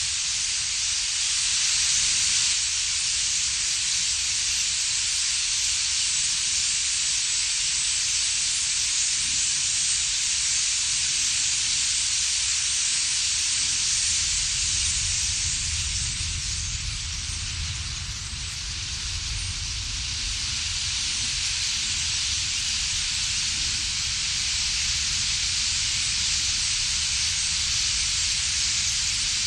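Steady hiss of a huge flock of European starlings chattering together in a reed bed. Wind rumbles on the microphone, strongest about halfway through.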